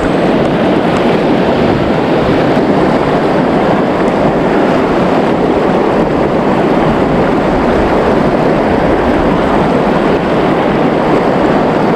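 Shallow river rapids rushing over rocks, a loud, steady roar of water heard close to the surface.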